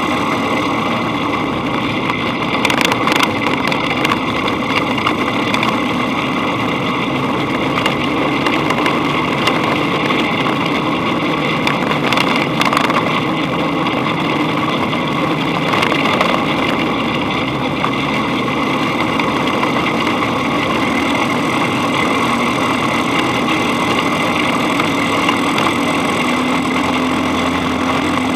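Dune buggy's engine running steadily as it drives along a dirt track, with a few sharp knocks from the bumps along the way.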